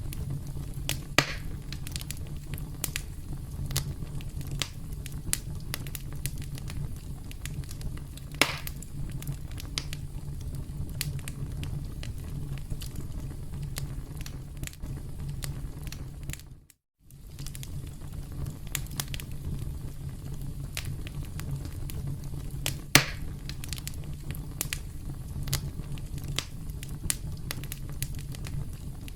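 Campfire crackling: a steady low rumble of burning with constant small pops and a few louder snaps, the loudest near the end. The sound cuts out completely for a fraction of a second about halfway through.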